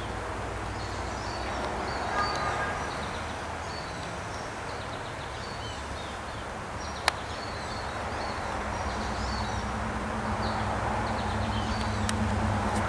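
Outdoor ambience of scattered short bird chirps over a steady low hum, with one sharp click about halfway through. The hum grows louder in the second half.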